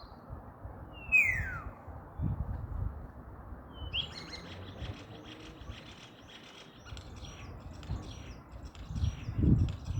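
Common starling singing: a clear whistle that slides down in pitch about a second in, then from about four seconds a fast run of clicks and rattling chatter. Under it runs a low rumble, with a couple of dull thumps near the end.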